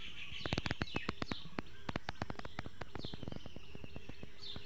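Birds calling with short descending chirps, while a run of irregular sharp clicks, densest in the first second and a half, is the loudest sound.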